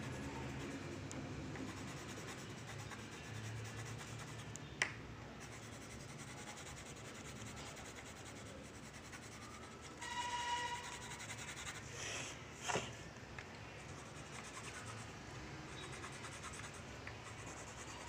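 Coloured pencil rubbing and scratching on paper in steady shading strokes, with a couple of sharp ticks about five seconds in and near thirteen seconds.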